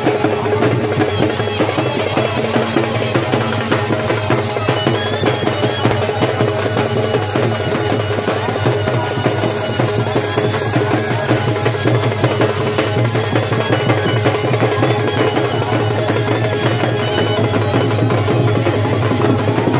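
Traditional folk drums beaten in a quick, steady rhythm, with a reed pipe playing over them.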